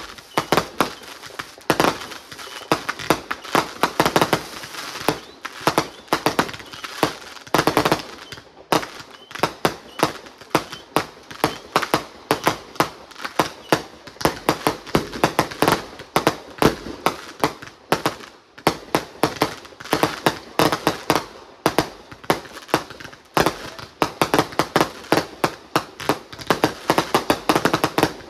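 Aerial fireworks firing continuously: a rapid stream of launch thumps and bursting shells, several bangs a second.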